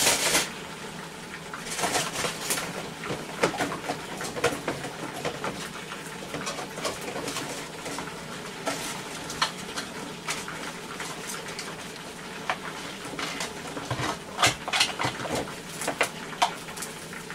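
Dishes and utensils clinking and knocking at irregular intervals, over a faint steady hum.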